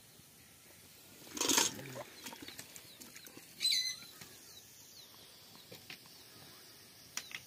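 Birds in an outdoor yard: scattered short, high chirps, with a brief loud rustling noise about a second and a half in and a sharper, louder call about two seconds later.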